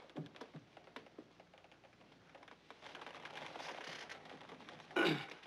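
Quiet pause on an old TV soundtrack: low room noise with scattered faint clicks, and one short, louder burst about five seconds in.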